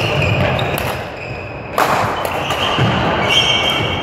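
Badminton rally: a sharp racket strike on the shuttlecock about two seconds in, with lighter hits after it and shoes squeaking on the court floor.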